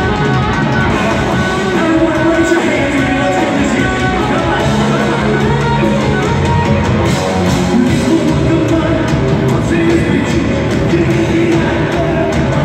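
Live hard rock band playing loudly, with electric guitars and a drum kit, and a male singer's voice over the music.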